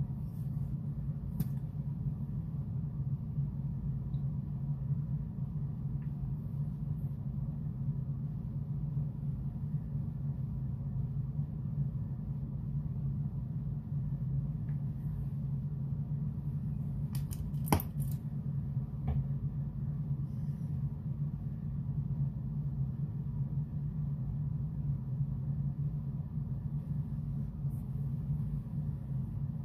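A steady low hum, with a few faint clicks and taps scattered through it, the sharpest one a little past the middle.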